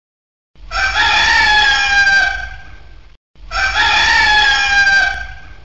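Rooster crowing cock-a-doodle-doo twice in a row. The two crows are almost identical, each about two and a half seconds long and trailing off at the end, like the same recorded crow played twice.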